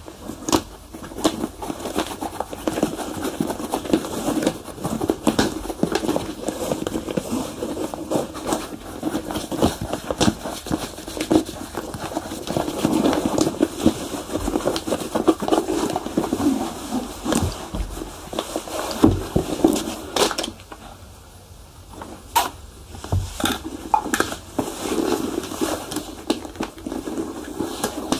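Shoe polishing: a continuous run of rubbing strokes on leather shoes, scattered with small clicks and taps, with a brief lull about three-quarters of the way through.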